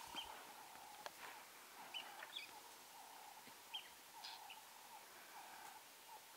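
Faint bird chirps over a quieter call repeated over and over in short phrases, with one sharp click about a second in.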